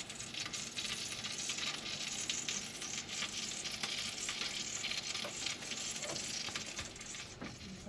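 Food frying in a hot pan: a steady sizzle with many small crackles and pops.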